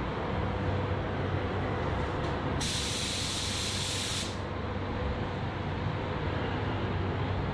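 Steady rushing air noise with a low hum; about two and a half seconds in, a gravity-feed paint spray gun is triggered and hisses with compressed air for about a second and a half, then stops.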